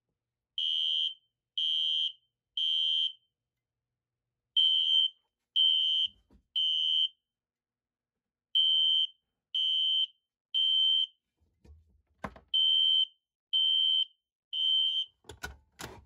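Fire alarm horn strobe sounding in the Temporal-3 evacuation pattern: three short high-pitched horn blasts, a pause, repeated four times, powered because the pull station has been pulled and closed the circuit. A few sharp clicks come near the end.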